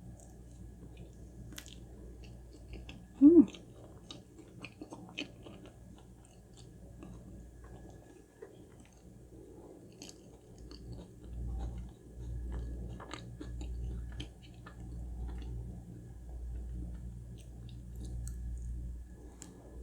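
A person chewing and biting food close to the microphone, with small wet clicks and, in the second half, a slow steady chewing rhythm about once a second. A brief, loud pitched sound comes about three seconds in.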